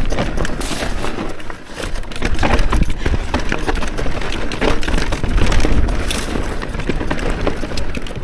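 Electric mountain bike riding over rough rock: a dense, irregular clatter of knocks and rattles from the tyres, chain and frame, over a steady low rumble.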